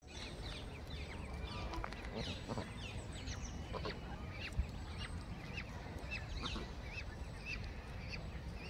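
Mallard ducklings and a gosling peeping: many short, high peeps, several a second, over a steady low rumble. A single sharp click about halfway through.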